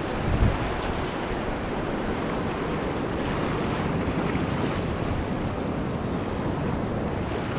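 Small waves washing up a sandy shore, a steady surf hiss, with wind on the microphone; a brief low gust buffets the microphone about half a second in.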